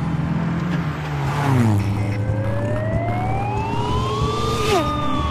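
Cartoon police car siren sound effect: a single wail starts about two seconds in, rises slowly, and begins to fall near the end, over a steady car engine sound.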